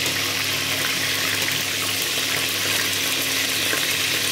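Cubes of pork belly deep-frying in hot oil in a pot: a steady sizzle, with a low hum underneath.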